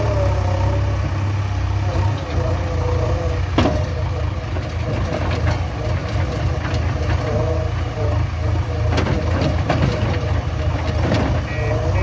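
JCB 3DX backhoe loader's diesel engine running steadily while its front loader bucket tips soil into a steel tipper truck body. Several sharp knocks come through as clods hit the truck bed.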